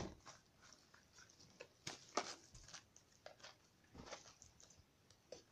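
Faint scattered taps and rustles of small cardboard firework packs being picked up and set down on a cloth-covered surface.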